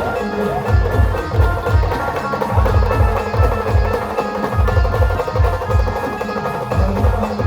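Brass band playing: a sustained brass melody over rapid, heavy drum beats.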